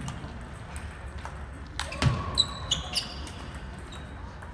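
Table tennis ball: a sharp knock about two seconds in, then three or four quick pinging bounces on a hard surface about a third of a second apart, with faint ball ticks before them.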